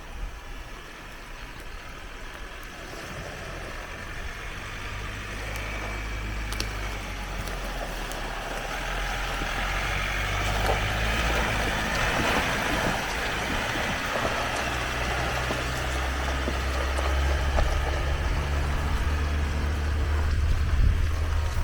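Off-road camper vehicle's engine running with a steady low drone, with a rush of noise that swells in the middle; the engine grows louder near the end.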